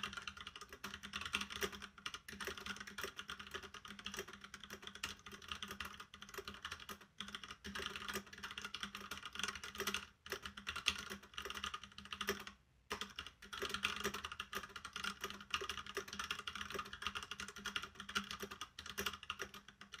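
Fast continuous typing on an Ajazz mechanical keyboard with Gateron Brown switches: a rapid, even clatter of keystrokes, broken by a few short pauses.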